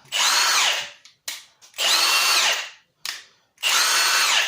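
Milwaukee M18 Fuel high-torque impact wrench (2863-20) spinning freely, triggered three times in bursts of about a second each. Its motor whine rises as it spins up and falls as it winds down.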